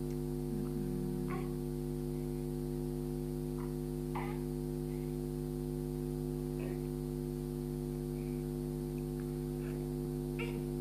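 A steady electrical hum, with several short, faint whimpers and grunts from a baby with a stuffy nose and cold, spread through.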